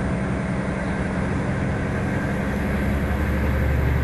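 Volvo B7R coach's diesel engine running under way, heard from inside the cabin: a steady low drone mixed with road and tyre noise, growing slightly louder near the end.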